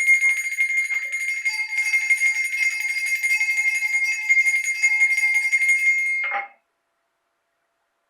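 Jingle bells (sleigh bells) shaken rapidly and continuously for about six seconds, then stopping suddenly.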